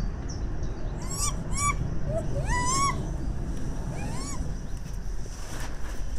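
White-handed gibbon hooting: about five short whooping calls that each rise in pitch, the longest a little before three seconds in and the last at about four seconds.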